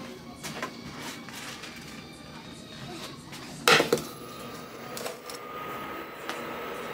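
A nonstick frying pan is set down with a loud clatter on a Nuwave induction cooktop, after a few light knocks. A faint steady high whine follows, typical of an induction coil heating a pan.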